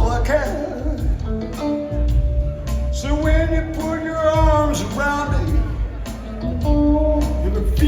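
Live rock trio of drums, bass guitar and electric guitar playing a slow groove, with bending melodic lines over a steady bass and drum beat, heard through a phone recording in a hall.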